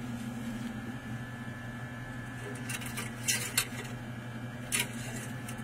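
Steady low machine hum in a boat's engine compartment, with a few short clicks and knocks from the dipstick and engine parts being handled while the oil is checked, the loudest about three seconds in and again near five seconds.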